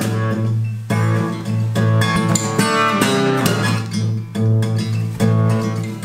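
Acoustic guitar strumming chords.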